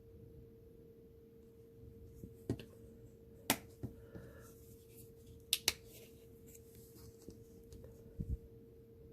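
A few sharp clicks and taps of small objects being handled while mixing airbrush paint, the loudest a quick double click a little past halfway, over a steady faint hum.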